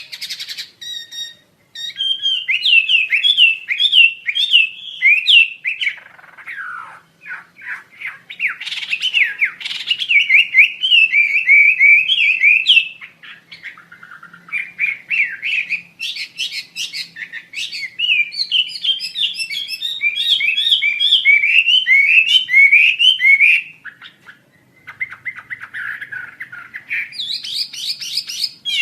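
Wambi Asia songbird singing long runs of rapid, repeated whistled chirps, broken by a couple of short pauses and a harsher, scratchy passage near the end.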